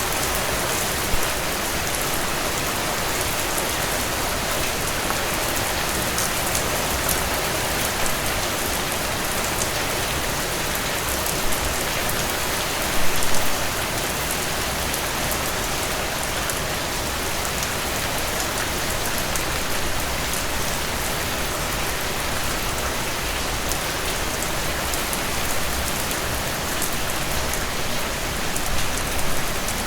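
Steady heavy rain falling on a surface, an even hiss with scattered louder drops and splashes, the biggest cluster about 13 seconds in. No thunder.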